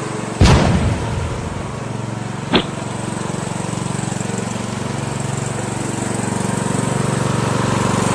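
Riding lawn mower engine running steadily as the mower drives along. A loud bang comes about half a second in, and a short sharp pop about two and a half seconds in.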